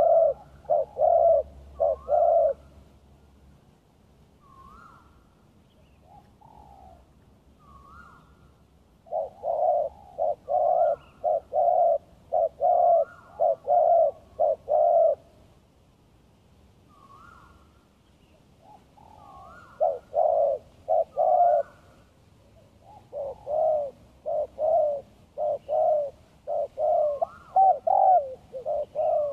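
Spotted doves cooing: bouts of rapid, closely spaced coos with short upward-flicking notes, four bouts in all, with fainter single coos in the quiet gaps between.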